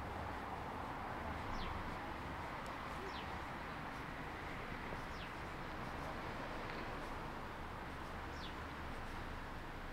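Steady outdoor night ambience, a low even hiss, with a small animal's short, high call falling in pitch about every two seconds, four times in all.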